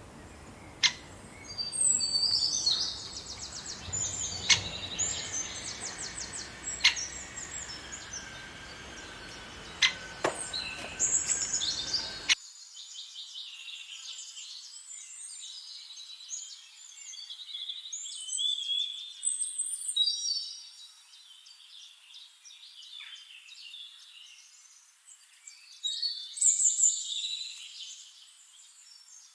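Several small songbirds chirping and singing in quick, high trills and twitters. In the first part a low background rumble and a few sharp clicks sound under the birds; about twelve seconds in the rumble cuts off abruptly and the birdsong carries on alone.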